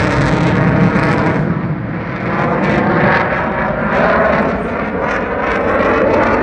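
Loud jet noise from an RAF Typhoon's twin EJ200 turbofans during a display pass, easing slightly about two seconds in and then building again.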